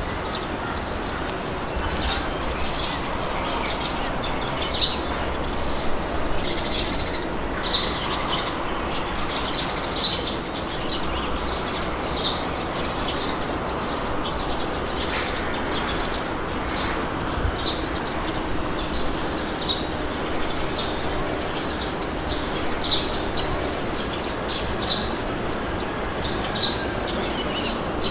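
Steady wind blowing with a low rumble, and small birds chirping over it in short, frequent calls.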